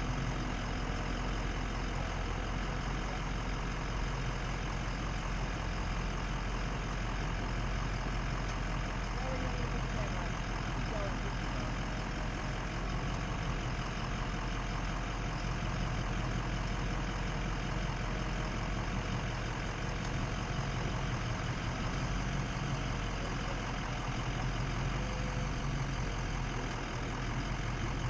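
Ford F-250's Power Stroke diesel V8 running steadily, a constant low drone that holds the same pitch throughout.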